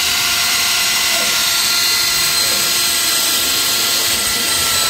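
APR AP17 cordless battery drill running at steady full speed, its bit boring into solid steel: an even motor whine over a hissing grind of metal being cut.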